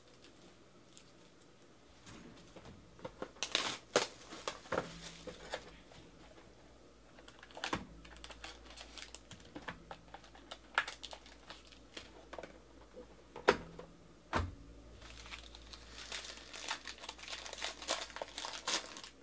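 Cardboard trading-card hobby box being handled and opened, with scattered crackles and clicks and a sharp click and thump past the middle. Near the end a foil card pack crinkles steadily as it is torn open.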